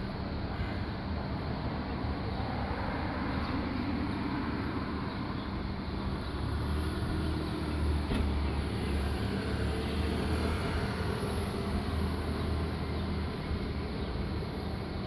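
Steady low rumble of road traffic, swelling about six seconds in and easing off near the end.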